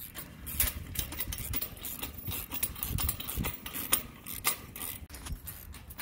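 Irregular metal clicks and knocks of a steel mesh hitch-mount cargo carrier's mounting plate and hardware being handled and fitted together.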